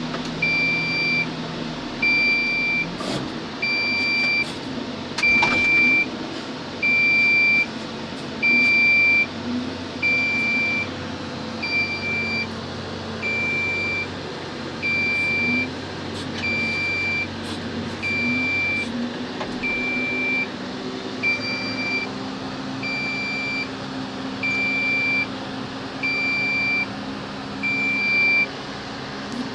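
Dumper truck engine running with a steady drone under a high warning beeper that sounds about every second and a half, each beep lasting nearly a second; the beeping stops shortly before the end.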